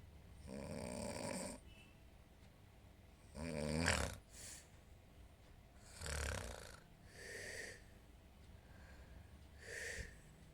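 A sleeping woman snoring: a slow run of snores and breaths every two to three seconds, the loudest a rattling snore about four seconds in.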